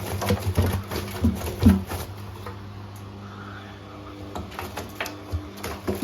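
Bosch WAE28462GB washing machine running with its door open: a steady motor hum with irregular knocks and clicks from the drum, busiest in the first two seconds and again near the end, calmer in between.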